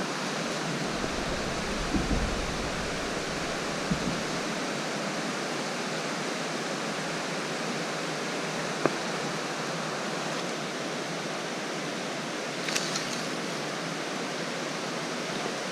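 Steady rush of flowing river water, an even hiss, with a brief low rumble a couple of seconds in.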